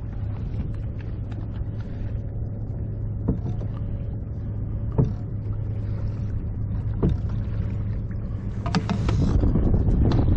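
Steady low hum over a bed of water and wind noise on a kayak. There are single sharp knocks about three, five and seven seconds in, then louder clatter and rustling near the end as a hand works at the plastic bait tube.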